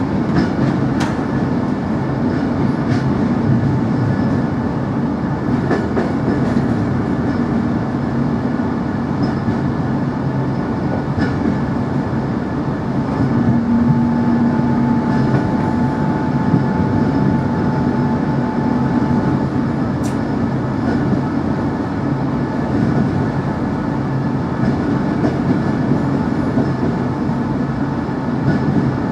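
Cabin noise inside a ČD class 460 electric multiple unit running at speed: a steady rolling rumble of wheels on rail, with occasional sharp clicks and a faint held whine near the middle.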